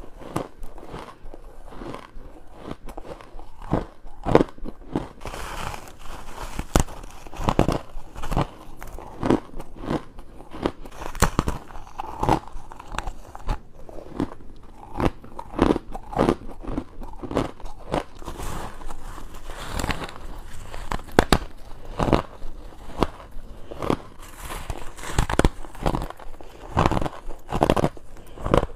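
Close-miked bites into purple humidifier frost and ice cubes: repeated crisp, crunching crackles as the frozen chunks break between the teeth, coming in quick irregular clusters.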